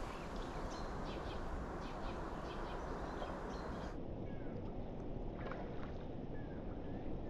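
Steady outdoor rushing noise with a few faint, short bird chirps, mostly in the second half.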